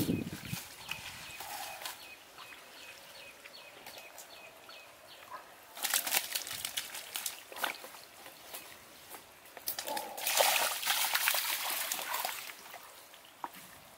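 Hands splashing and squelching in shallow muddy water while groping for fish. It comes in two louder bouts, one about six seconds in and a longer one from about ten to twelve seconds.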